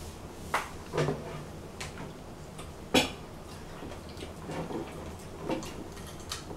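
Scattered small clicks and taps of pomegranate pieces being picked apart and handled over plates, with one sharper click about three seconds in.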